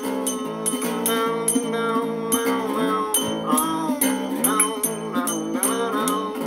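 Instrumental passage of a song: a melody line gliding up and down in pitch over a sustained low note, with evenly repeating sharp high ticks keeping the beat.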